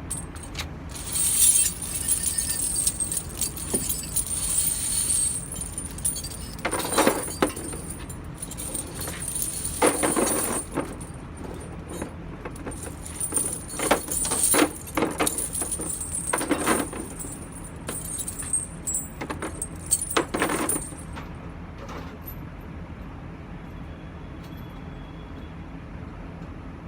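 Steel tractor-trailer tire chains being gathered up and hung on a chain rack: the links jingle and rattle, with several heavier clanks as the chains are lifted and dropped, over a steady low hum. The chain noise stops about 21 seconds in.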